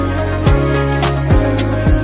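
Background music with a steady beat: deep kick drums and sharp percussion hits over held bass notes.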